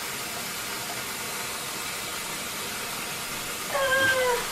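A steady hiss, with a short falling vocal sound from a boy near the end.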